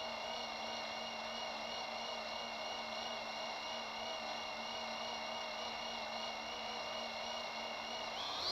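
Cinewhoop drone's brushless motors whining at idle with several steady, slightly wavering tones, then starting to rise in pitch near the end as the throttle comes up for takeoff.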